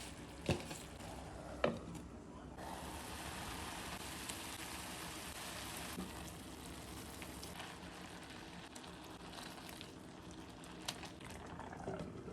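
Food frying in a pan, a steady sizzle that grows stronger after about two and a half seconds. There are a couple of sharp knocks in the first two seconds.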